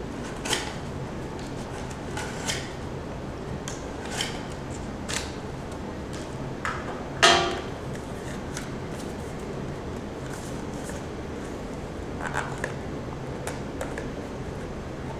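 Cardboard mailing tube knocked and set down on a glass tabletop: a scattered series of dull knocks, the loudest about seven seconds in with a short ringing note, and a small cluster near the end. A steady low hum runs underneath.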